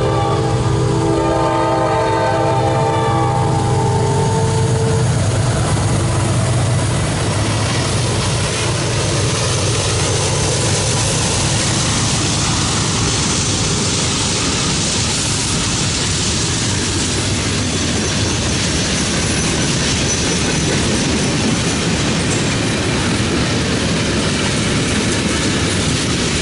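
Norfolk Southern diesel freight train going by: the locomotive horn sounds a chord of several tones until about five seconds in, then the locomotives' engines pass and the freight cars roll by with wheels clacking over the rail joints.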